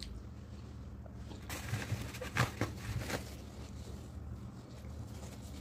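Paper tissue rustling and crinkling for about two seconds near the middle, with a few sharp crackles, over a low steady hum.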